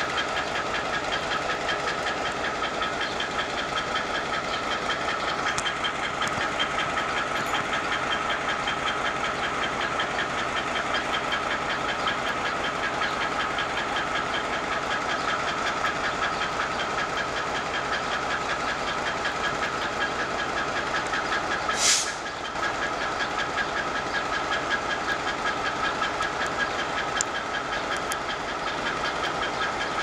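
ALCo RSD-16 diesel-electric locomotive's 16-cylinder ALCo 251 engine working as it approaches with a loaded train of hopper cars: a steady pulsing engine sound with a high steady tone over it. A short loud hiss cuts in once, about two-thirds of the way through.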